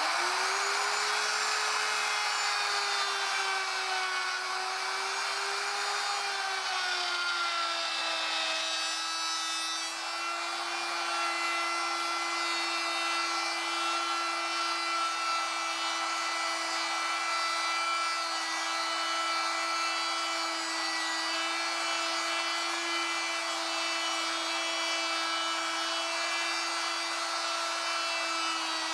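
Electric router with a 3/4 inch mortising bit cutting a groove in wood, its motor giving a steady high whine that settles slightly lower in pitch about eight seconds in.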